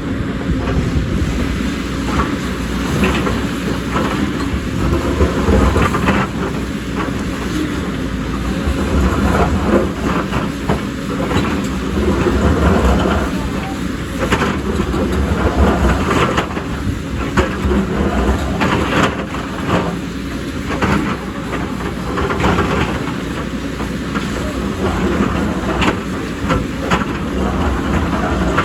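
JCB excavator's diesel engine running under load with a steady low rumble, while irregular clanks and knocks come from the bucket and tracks working rock and earth.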